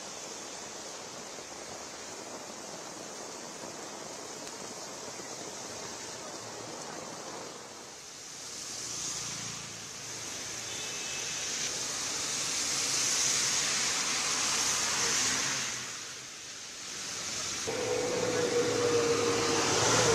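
Heavy rain falling on a city road, a steady hiss that swells louder in the second half. Near the end a held steady tone sounds over the rain.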